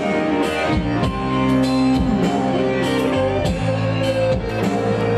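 Electronic keyboard playing an instrumental passage of held notes and guitar-like sounds over a steady drum beat.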